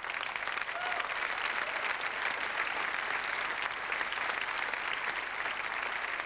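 Studio audience applauding: dense, steady clapping from a large crowd that breaks out at the start and holds level throughout.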